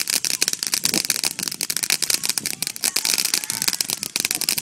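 Ground firework spraying sparks and crackling: a rapid, dense run of sharp pops, many a second.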